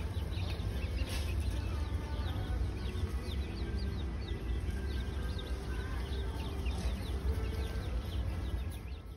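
Many newly hatched ducklings and chicks in a brooder peeping: a dense, overlapping stream of short, high, falling peeps. A low steady hum runs underneath.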